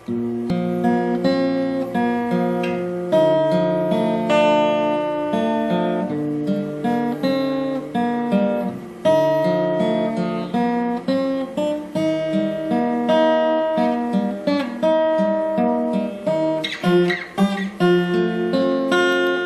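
Acoustic guitar strumming a sequence of chords, the chords changing every second or so.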